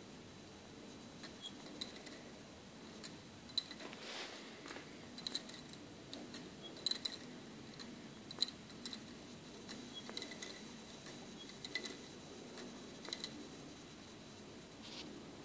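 A homemade clothes-peg mixer, a bent-wire crank with coiled springs on a wooden clothes peg clipped to a glass of water, being turned by hand: light, irregular metallic clicks and ticks from the wire mechanism, thinning out near the end.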